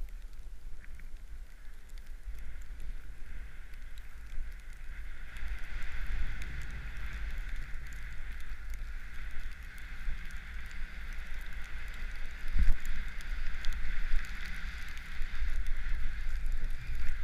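Wind buffeting a helmet-mounted GoPro's microphone over the hiss of a snowboard sliding through powder snow, the hiss growing louder about five seconds in, with a sharp knock past the middle.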